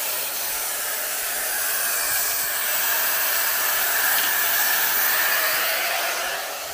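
Compressed air hissing steadily from a laser engraver's air-assist nozzle, cutting off abruptly at the very end.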